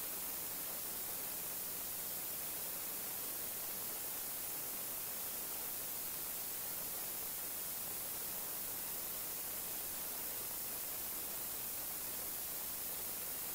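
Steady static hiss, even and unchanging, with no other sound standing out.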